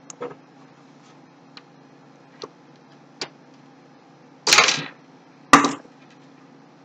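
Computer parts being handled in a PC case: a few light clicks, then two louder short clattering noises about a second apart near the end.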